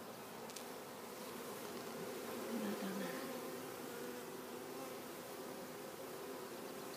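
Honeybees buzzing around a newly installed hive, a steady hum of many wings.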